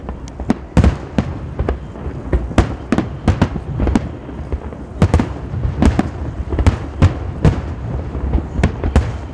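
Aerial fireworks shells bursting in quick, irregular succession, two or three sharp bangs a second over a continuous low rumble.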